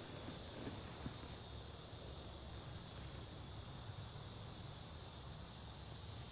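Faint outdoor ambience: a steady hiss with a high, even insect hum, and a couple of faint ticks about a second in.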